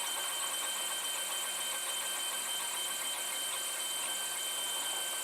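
Protomaker FDM 3D printer running partway through a print: a steady whir and hiss with a thin, steady high whine.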